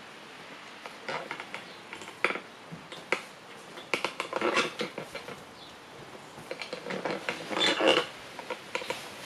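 Irregular clicks, scuffs and rustles from a pug puppy moving about on a dust mop as the mop is pushed over a hardwood floor, coming in several short flurries with the busiest near the end.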